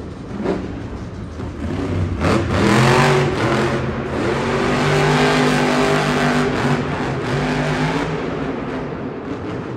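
Monster truck's supercharged engine revving hard, rising in pitch about two seconds in and then held at high revs for several seconds as the truck jumps, before easing off near the end.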